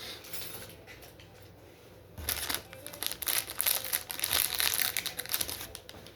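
Plastic packaging crinkling and rustling as it is rummaged through by hand, a dense crackle that starts about two seconds in and goes on for about four seconds.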